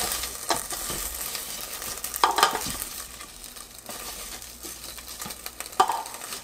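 Metal tongs clicking and scraping against a ceramic-coated air fryer basket while tossing hot fries, with a few sharp ringing knocks. Under them is a steady sizzling hiss from the hot, oil-tossed fries.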